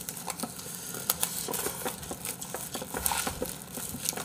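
Paper-and-plastic packaging of a small cup of Yukgaejang instant noodles crinkling and tearing as it is peeled open by hand, in a run of quick, irregular crackles.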